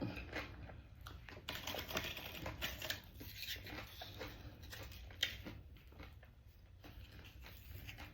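A person eating close to the microphone: chewing with irregular crisp crunches and wet mouth clicks, one sharper crunch about five seconds in.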